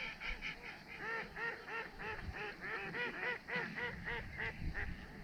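A flock of waterfowl calling: many short overlapping calls, several a second, from a large number of birds.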